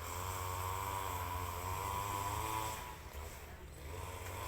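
A small fishing boat's engine running steadily, its pitch wavering slightly, with a short drop in level about three seconds in.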